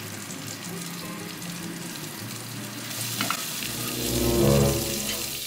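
Salmon sizzling in a frying pan, with a steady hiss. From about three and a half seconds in, a low hum with several tones swells up and stays to the end.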